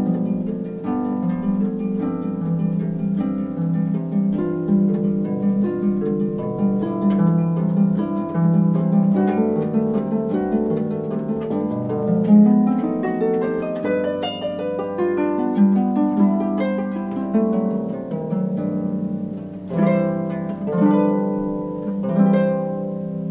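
Pedal harp played solo: a flowing stream of plucked notes ringing over one another, with a strong accent about halfway through and rolled chords near the end.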